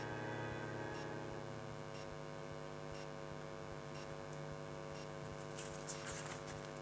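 A string quartet's final chord dying away over about the first second, leaving a faint steady hum with soft ticks about once a second. Brief rustling near the end.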